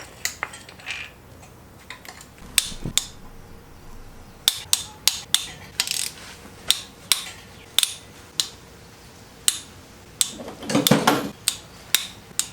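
Metal hand tools and engine parts clinking against each other in irregular sharp clicks, with a short rattling, scraping clatter near the end.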